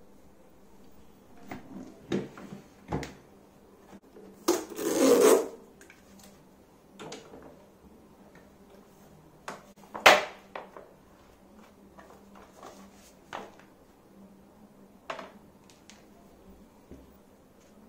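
Handling noise of a hard plastic tool case and its cardboard box: a scraping rub lasting about a second near a third of the way in, then scattered knocks and clicks as the case is opened, with one sharp click near the middle the loudest.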